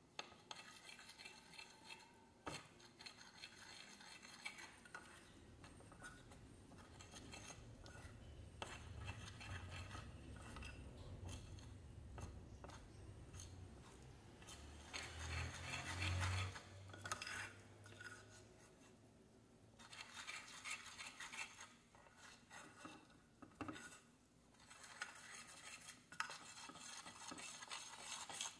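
Faint mixing in a glass bowl: a metal spoon stirring, scraping and clinking against the glass through a crumbly sour-cassava-starch dough, then fingers working the dough, in irregular bouts of small clicks and scrapes.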